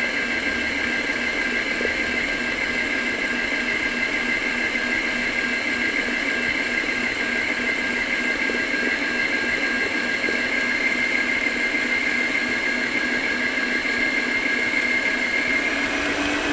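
Planetary stand mixer's motor running steadily at one speed, a constant whine, kneading a cake dough.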